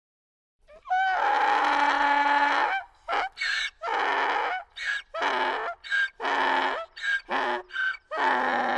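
Donkey braying, starting about a second in: one long opening call, then a run of shorter hee-haw notes that come quicker near the end.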